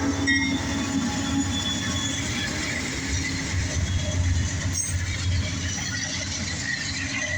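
Diesel freight locomotive passing close, its engine growling low under steady steel wheel-and-rail noise with faint wheel squeals, just as its horn cuts off at the start.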